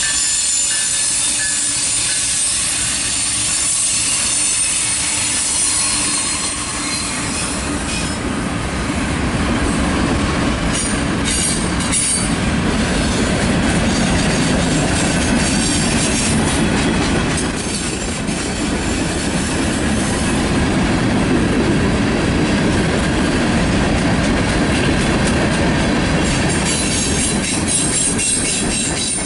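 Freight train passing close by: the diesel locomotives at its head, led by a GE ES44DC, go by first, then a long string of covered hoppers and boxcars rolls past with a steady heavy rumble of wheels on rail. Sharp rail clicks come now and then, and a high-pitched wheel squeal comes and goes.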